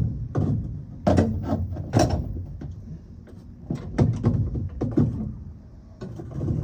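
A series of irregular knocks and clunks from tools and metal parts being handled under the truck, about six sharp ones, with a slight echo from the truck bed overhead.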